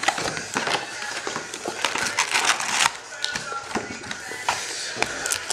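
Plastic and foil wrapping crinkling and rustling as trading-card packs are handled, with scattered light taps and clicks.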